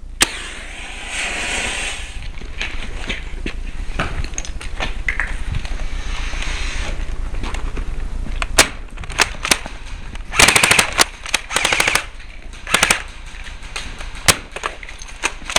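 Airsoft gun firing 6 mm BBs: a steady hiss for the first half, then single sharp shots and short rapid bursts in the second half.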